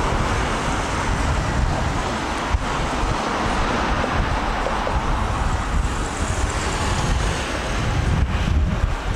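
Steady road traffic noise, an even wash of passing vehicles with no single event standing out.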